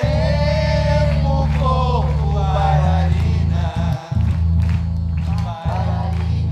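Music: a song with a wavering singing voice over a steady deep bass line, briefly dropping out a few times in the second half.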